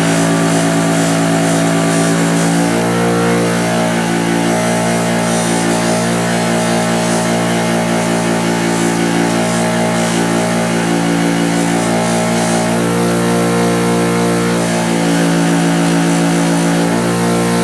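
Electric buffer motor running steadily with a 2000-grit polishing wheel spinning, a loud even hum whose tone shifts a few times as the steel pliers are worked against the wheel.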